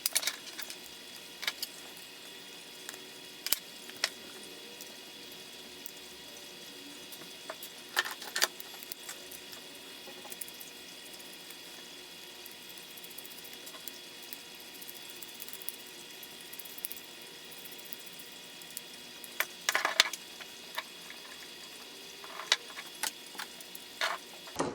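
Parts being handled during hand assembly: scattered light clicks and clinks over a faint steady hiss, with the sharpest clicks about 8 seconds in and again about 20 seconds in.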